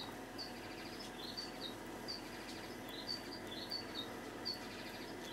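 Faint, short high-pitched chirps repeating about twice a second, some stepping down in pitch, over a faint steady hum.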